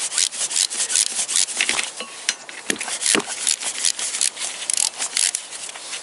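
Ratchet wrench with socket and extension clicking in quick, uneven runs of ticks as a flywheel bolt is spun out.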